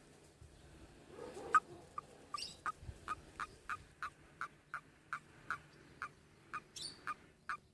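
A frog calling: after a lower call about a second in, a long regular series of short, clicking notes, about three a second.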